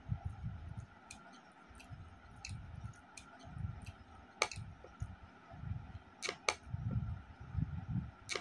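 Close-miked eating sounds: soft chewing thumps about every half second, broken by several sharp wet clicks, the loudest about halfway through and two in quick succession a couple of seconds later, while rice and curry are mixed by hand on a plate.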